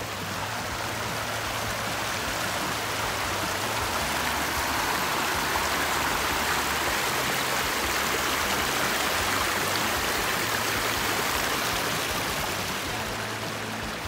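Shallow stream of water rushing and splashing over boulders in a rock-lined channel, a steady rush that grows louder through the middle and eases near the end.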